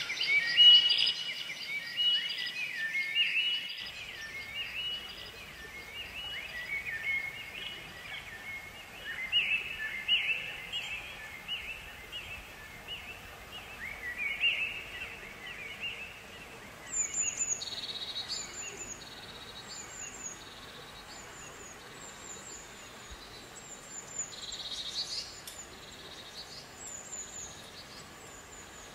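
Songbirds chirping: a busy run of quick chirps in the first half, then short, high chirps repeating at a steady pace over a faint background hiss.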